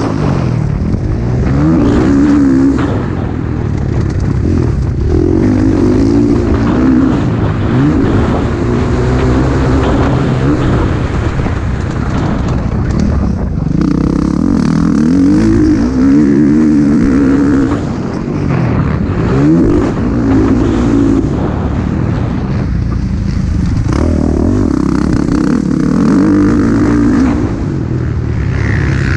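Motocross bike engine, heard up close from the bike, revving hard through the gears: the pitch climbs, drops back at each shift or roll-off, and climbs again, over a steady rush of wind and dirt noise.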